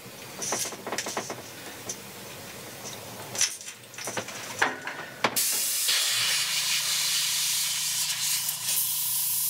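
A few small clicks and taps, then from about five seconds in an airbrush spraying: a steady hiss of air and paint with a low pulsing hum under it.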